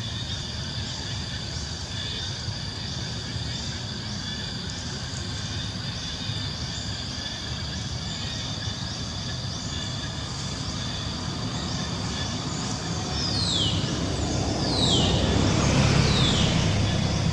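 Outdoor ambience: a steady low rumble that swells near the end, under a run of short high chirps falling in pitch that repeat about once a second, three of them louder near the end.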